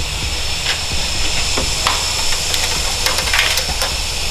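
Steady hiss of workshop background noise with a low hum, and scattered small clicks and taps from wiring and parts being handled in the engine bay.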